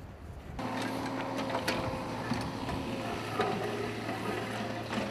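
Small excavator's engine running with a steady hum, with a few sharp knocks over it. The hum cuts in abruptly about half a second in, after a low wind-like rumble.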